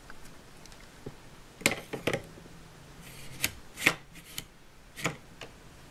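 Hands handling plastic Play-Doh playset pieces and dough: about half a dozen short plastic clicks and rubs, spaced roughly a second apart.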